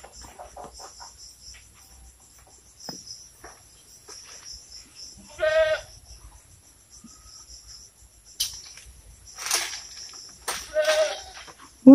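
Long telescopic pole cutter working in a tree canopy: leaves rustle and twigs snap in a few short bursts near the end. Steady high insect chirring runs underneath, with one short pitched call about halfway through.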